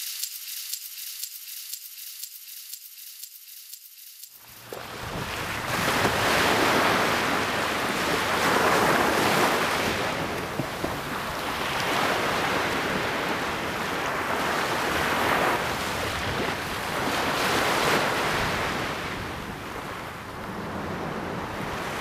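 Sea surf breaking on a shore, rising and falling in swells every few seconds. The surf comes in about four seconds in, after a thin, high crackling hiss.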